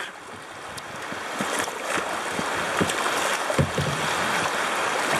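River water rushing over a shallow, rocky riffle and splashing around a kayak's bow, steady throughout, with a few short low bumps.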